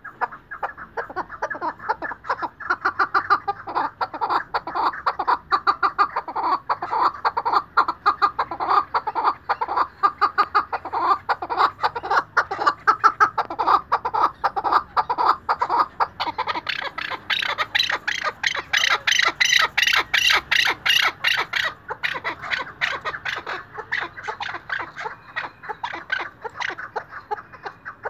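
Chukar partridge calling: a long, unbroken run of rapid, repeated chuck notes. Roughly two-thirds of the way through, the notes grow louder and shriller for a few seconds, then ease back.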